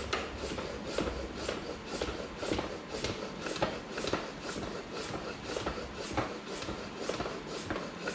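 Floor pump worked in quick, regular strokes, each stroke a short hiss of air, pumping up a folding bike's inner tube. The tyre is being reinflated after being squeezed so that its bead line seats evenly on the rim.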